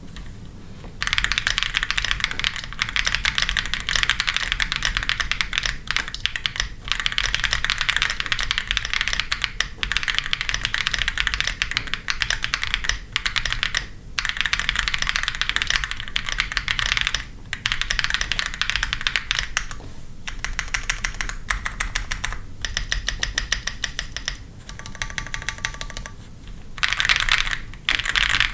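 Typing on a mechanical keyboard, a PC65 kit with SWK Yang switches and XMI keycaps: rapid runs of clacking keystrokes broken by short pauses, turning slower and sparser toward the end.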